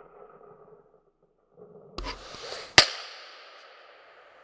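A single shot from a Colt Model 1903 Pocket Hammer pistol in .38 ACP: one sharp, loud crack just under three seconds in, its echo trailing off slowly. A smaller click comes just before it, and the tail of an earlier shot dies away at the very start.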